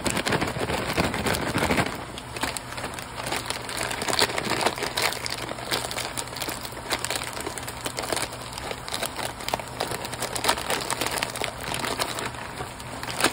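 Ground beef sizzling and crackling in a cast iron skillet, a dense run of small crackles, a little louder in the first two seconds or so.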